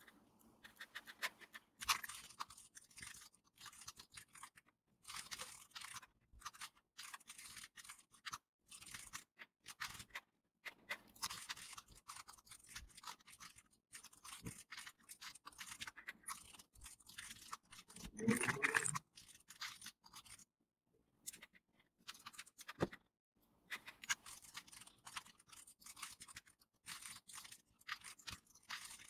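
Computer keyboard typing, sped up: a quiet, fast, dense clatter of key clicks broken by short pauses, with one brief louder burst about two-thirds of the way through.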